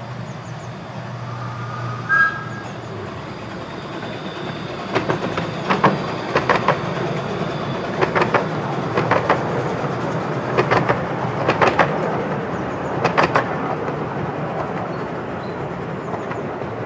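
Miniature-railway passenger train rolling past, a steady rumble with its coach wheels clicking over the rail joints in quick pairs and clusters for about eight seconds, starting about five seconds in. A brief high tone sounds about two seconds in.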